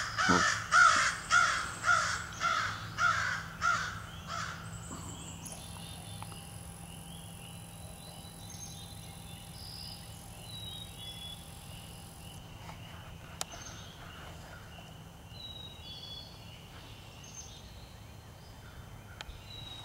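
A crow cawing: a quick run of about nine harsh, loud caws that fades out about four seconds in. After it, quiet woods with faint, scattered small-bird chirps.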